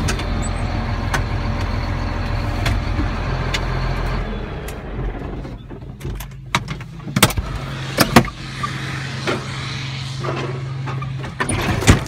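Farm tractor engine running, heard from inside the cab; about four seconds in the sound drops and thins out. Several sharp knocks and clunks follow a couple of seconds later, and an engine keeps running steadily behind them.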